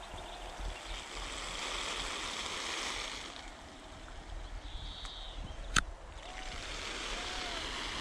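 Water spray from an oscillating garden sprinkler hissing onto soil and plants, swelling and fading twice. A single sharp click comes about six seconds in.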